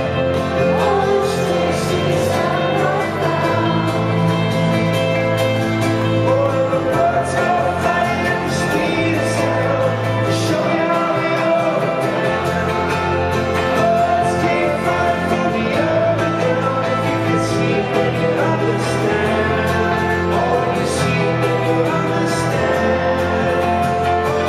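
A live rock band plays a song with piano and guitar while a man sings, heard from among an arena audience.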